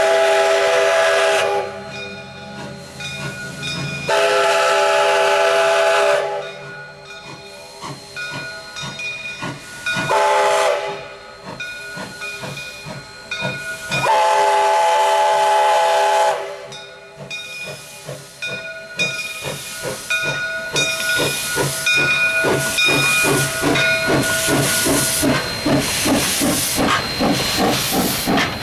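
Steam whistle of the 1920 locomotive No. 3 sounding four blasts of several tones together, long, long, short, long: the grade-crossing signal. After that comes the steady rhythmic chuff of the locomotive's exhaust with hissing steam as it draws near and passes close by.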